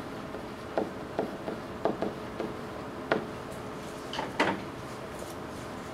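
Dry-erase marker on a whiteboard: a run of short squeaks and scrapes as words are written, with a pair of higher squeaks about four seconds in, over a steady low room hum.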